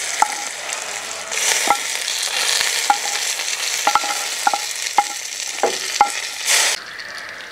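Hot oil tempering of mustard seeds, dried red chillies and curry leaves sizzling as it is tipped from a frying pan into a pot of sambar. A wooden spatula scrapes and knocks against the metal pan about once a second, each knock ringing briefly. The sizzle swells to a loud surge near the end.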